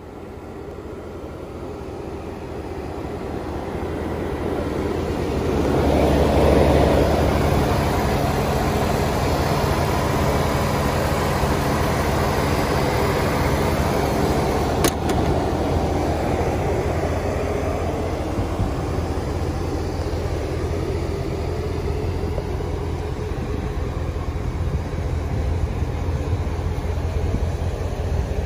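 5.7L HEMI V8 idling steadily, growing louder over the first six seconds and then holding even. A single sharp click sounds about halfway.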